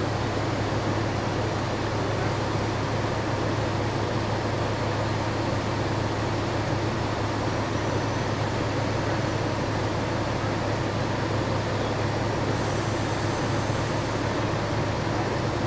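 A steady mechanical rumble, like a running vehicle engine: a low, even hum under a broad hiss that does not change.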